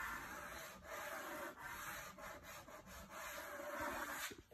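Soft pastel being worked across paper: a scratchy rubbing in repeated strokes, laying on and spreading orange colour, that stops shortly before the end.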